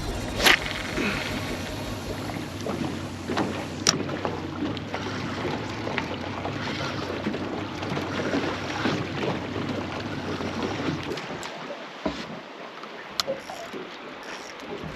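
Small fishing boat on fast tidal water: a low engine hum under water sloshing and splashing, with a few sharp knocks. The hum drops away about eleven seconds in.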